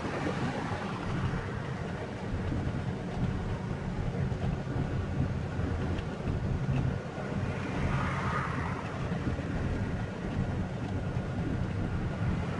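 Cab noise of a semi-truck being driven, heard from inside the cab: a steady low engine and road rumble.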